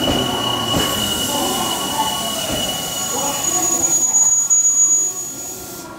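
Odakyu 1000-series electric train pulling slowly into the station over curved points, its wheels squealing: one steady high squeal, joined about three seconds in by a higher, thinner squeal that stops shortly before the end. A couple of knocks sound in the first second.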